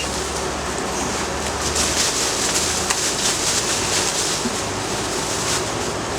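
Outdoor air-conditioner unit running steadily with a constant hiss, its low hum fading out about two seconds in, with a faint click or two of the box being handled.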